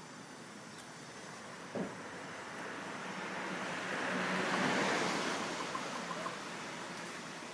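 A passing vehicle, its noise swelling up over a few seconds to a peak about five seconds in and then fading away, with a few faint short high notes just after the peak.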